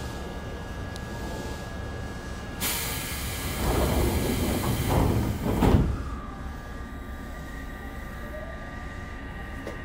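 Pneumatic sliding doors of an Odakyu 1000-series commuter car working at a station stop. A sudden hiss of air lasts about three seconds and ends in a sharp thud as the door leaves reach their stops. Beneath it runs the steady hum of the stationary train.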